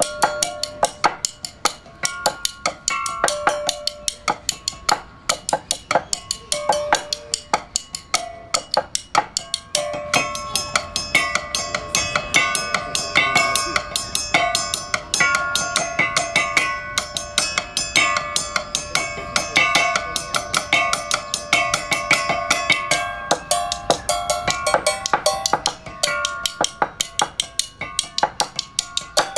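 Two players striking sections of metal pole laid on wooden trestles with wooden sticks, a percussion duet of quick, steady strokes that each ring with a short pitched note. The playing grows denser and fuller about ten seconds in.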